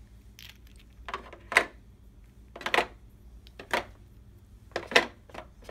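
Plastic dice being pressed into the slots of a board game box's plastic insert: a series of sharp clicks, about one a second.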